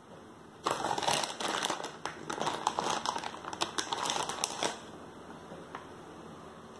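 Dense crinkling and crackling for about four seconds, starting just under a second in and stopping suddenly.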